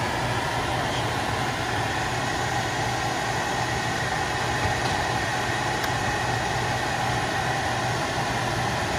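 Old air handler's blower fan and motor running steadily, with a steady low hum. The unit is running again on a newly fitted 24-volt transformer.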